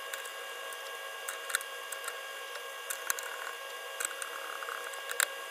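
Screwdriver tightening small metal screws on a CPU cooler mounting bracket: scattered faint clicks and light metal scraping, with a few sharper ticks, over a steady faint high whine.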